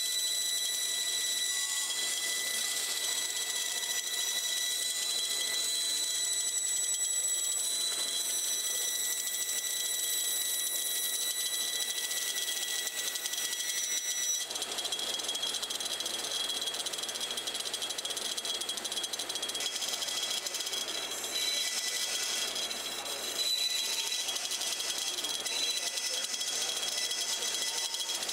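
Bandsaw running with its blade cutting through a thick block of wood: a steady high whine over the hiss of the cut. The lowest tone of the whine drops away about halfway through.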